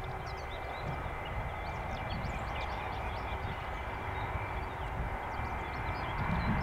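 Airbus A319 corporate jet's twin turbofan engines running at low taxi power, a steady rumble with a high whine that grows a little louder near the end. Small birds chirp over it.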